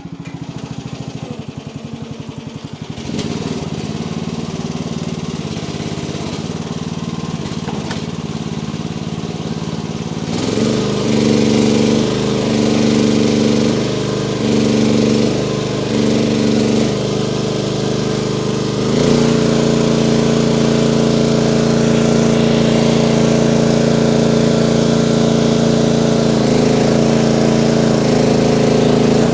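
Mini-excavator's diesel engine running while the log grapple back drags brush. The engine picks up a little about 3 s in and again about 10 s in, its note dips and recovers several times under hydraulic load, then holds steady at high revs for the last ten seconds.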